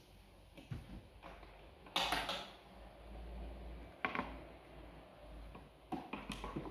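Irregular knocks, creaks and rustling from something being handled or moved, the loudest about two seconds in, another about four seconds in and a quick cluster near the end, over a low steady hum.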